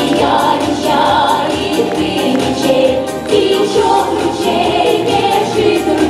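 A Russian folk song performed live by a small choir of women's voices, with accordion accompaniment and a steady beat.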